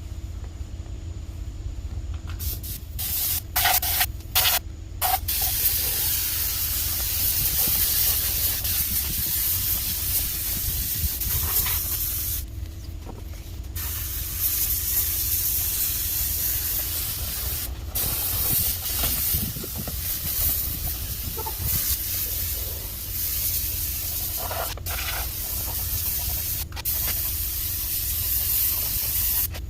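Air-powered paint spray gun spraying acetone-thinned Rust-Oleum oil-based paint: a few short trigger pulls at first, then long steady hissing passes broken by brief pauses.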